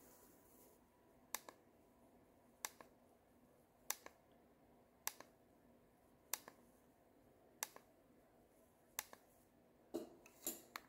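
Button on a handheld universal garage door remote being pressed and released over and over, a faint plastic click about every second and a quarter, coming faster near the end, while the remote is being programmed to an opener.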